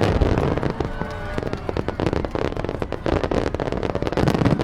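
Many fireworks going off in quick succession: a dense, rapid crackling and popping over low booms.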